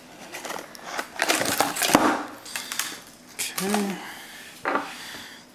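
Hands handling a small cardboard hard-drive retail box on a wooden table: irregular scraping and rustling with a few knocks, the loudest about two seconds in, as the box is being opened.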